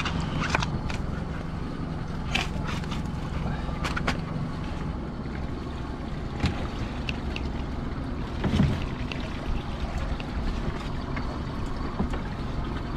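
Small boat's motor running steadily, with scattered knocks and clatter as a lobster pot is hauled up over the gunwale.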